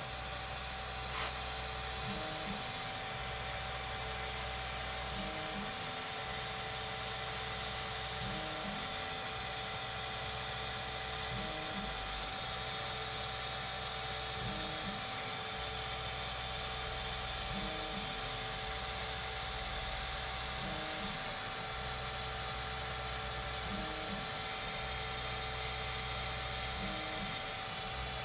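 Formbot Troodon CoreXY 3D printer printing: its stepper motors whir through a movement pattern that repeats about every three seconds, over a steady hum from its fans. A single short click about a second in.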